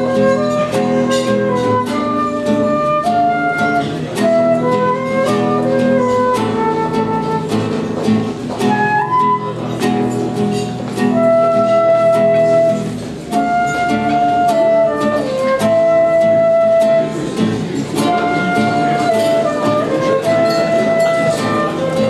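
Nylon-string classical guitar playing chords, with a slow melody of long held notes on top that sounds like a flute.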